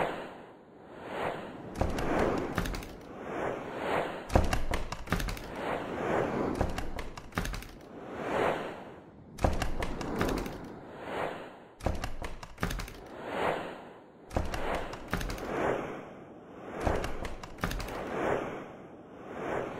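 Swooshing sound effects: a run of whooshes, one every second or so, each swelling and fading, with sharp hits and thuds among them.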